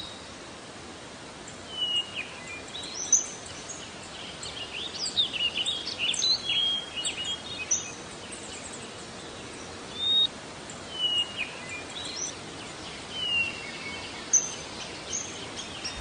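Small birds chirping and calling in short scattered notes and brief falling whistles, over a steady background hiss.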